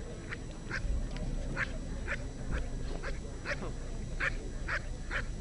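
Working dog holding its bite on a decoy, giving short, high-pitched whining yelps about twice a second.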